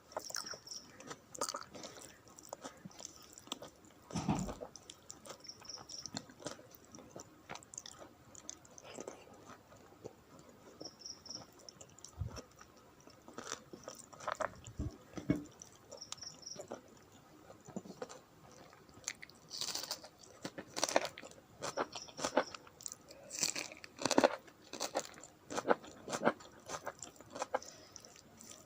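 Close-up chewing and mouth sounds of someone eating rice with dal and curries: irregular clicks, busier and louder in the second half.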